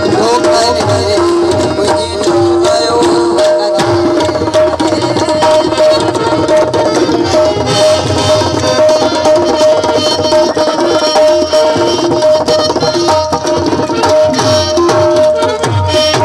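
Instrumental interlude of a Sindhi kafi: tabla playing a brisk, steady rhythm under a harmonium holding long sustained notes.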